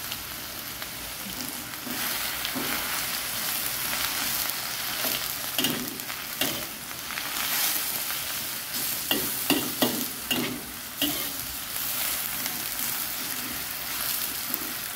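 Food frying in a pan, a steady sizzle, with sharp clinks of a utensil or dishware in the middle stretch.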